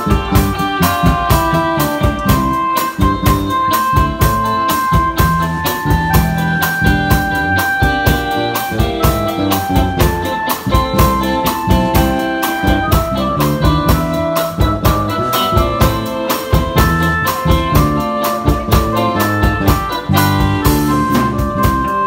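Live band playing: a drum kit keeps a steady beat under electronic keyboard held chords and melody.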